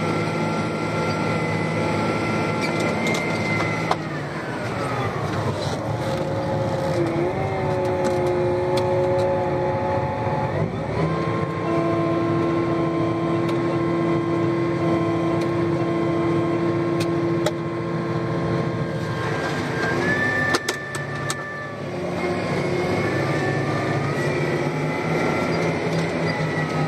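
John Deere 8530 tractor's six-cylinder diesel running under load, heard from inside the cab, with a steady whine over the engine note. Its pitch sinks about four seconds in, climbs back about eleven seconds in, and shifts again a little before twenty-one seconds.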